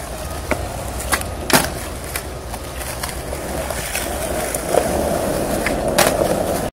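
Skateboard wheels rolling on asphalt, a steady low rumble, broken by several sharp clacks of the board hitting the street, the loudest about a second and a half in.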